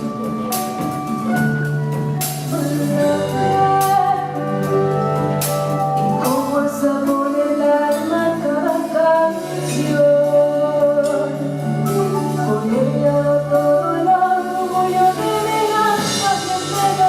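Youth orchestra playing: a moving melody over held low notes, with sharp percussive hits.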